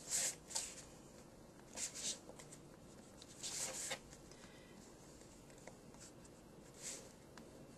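A bone folder rubbing along folded paper over chipboard, creasing the corners: about four short, faint scratchy strokes with pauses between them.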